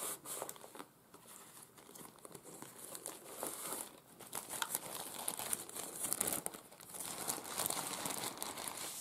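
Clear plastic bag crinkling as it is pulled out and handled, in irregular crackles, loudest about a third of the way in and again towards the end.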